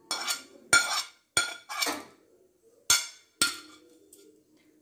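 A spoon clinking and scraping against glass bowls as chopped onion is tipped from one bowl into another: about six sharp clinks over the first three and a half seconds.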